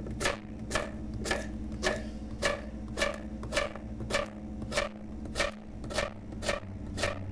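A kitchen knife chopping on a cutting board in steady, even strokes, a little under two a second, over a low steady hum.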